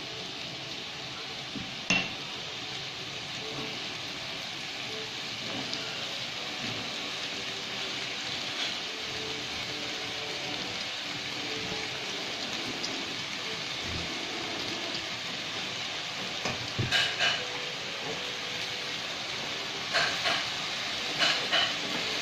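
Tteokbokki frying in a stone-coated wok, sizzling steadily while a silicone spatula stirs it. A few short sharp knocks and scrapes of the spatula against the pan come about two seconds in and again in the last five seconds.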